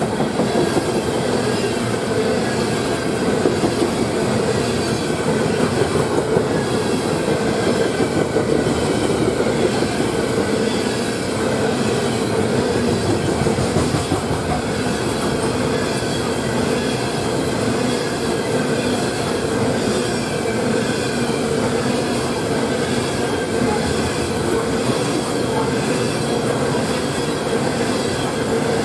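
Freight train of open-top coal cars rolling past close by at speed: a steady rolling rumble and rattle of steel wheels on the rails.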